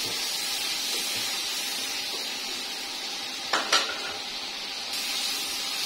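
Onions, ginger-garlic paste and chopped tomatoes frying in oil in a pot with a steady sizzle as they are stirred. A spoon clinks against the pot twice, about halfway through.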